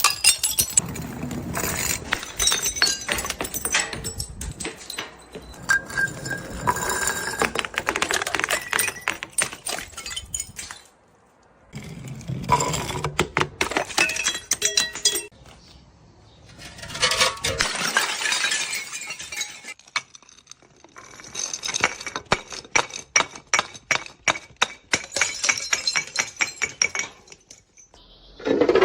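Glass bottles breaking, with dense runs of clinking and crunching glass shards. The sound comes in about five bouts of a few seconds each, with brief pauses between.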